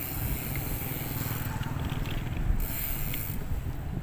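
Wind buffeting a chest-mounted phone's microphone during a bicycle ride, a steady flickering rumble with road noise and a few faint ticks.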